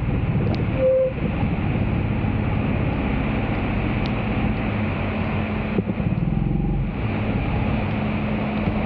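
Steady rain falling on a flooded street, with wind rumbling on the microphone and a steady low hum.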